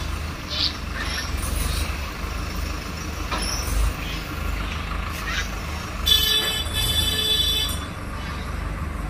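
Diesel engines of a line of Farmtrac tractors running steadily at low speed, with a horn sounding for about a second and a half some six seconds in.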